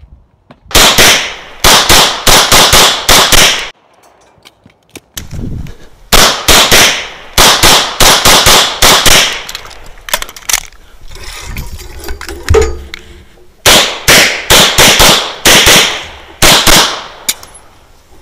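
Tanfoglio Stock III pistol fired in quick strings of shots. Three bursts of about eight to twelve rapid shots each come with pauses of a few seconds between them; the first starts about a second in.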